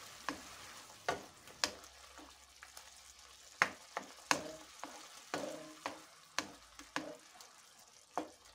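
Wooden spoon stirring chopped tomatoes in a frying pan, knocking against the pan about nine times at irregular intervals, over a faint sizzle of the simmering tomatoes.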